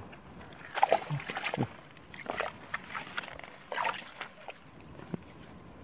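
Hands splashing and sloshing in shallow muddy water among plant stems, groping for fish, in several short spells of splashing.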